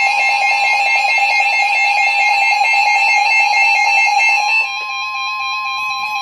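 NOAA Weather Radio warning alarm tone: a loud, steady single tone near 1 kHz, sounding together with a second, rapidly pulsing alarm tone. Part of the sound drops out and the level falls about 4.5 s in. The tone signals that a warning is about to be broadcast.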